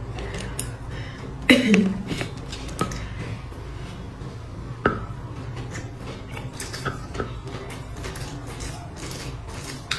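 Close-miked eating sounds: chopsticks clicking against a cup as a purple glutinous rice cake is dipped and lifted, with small mouth sounds throughout. A short vocal sound falling in pitch comes about a second and a half in, and two sharper clicks near the third and fifth seconds, the second with a brief ring.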